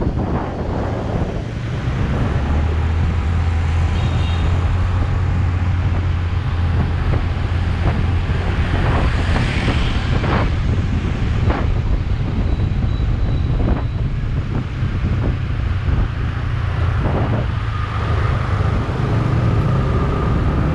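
Riding on a motor scooter in moving traffic: a steady low rumble of wind buffeting the microphone mixed with the scooter's engine and the surrounding traffic, with a few brief higher sounds along the way.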